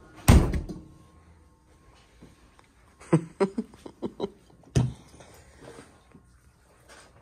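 A heavy thud with a short ring about a third of a second in, then a quick run of knocks and clatters around three to four seconds and another thud near five seconds.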